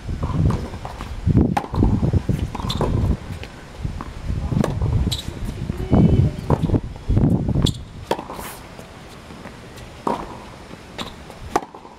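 Tennis ball struck by rackets and bouncing on a hard court during a baseline rally: sharp pops every second or few.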